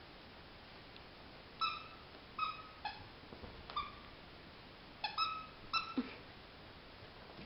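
A squeaky plush dog toy is squeezed by a Yorkshire terrier's bites. It gives about eight short, high squeaks in irregular bunches, and a few squeaks slide down in pitch as the squeaker lets out.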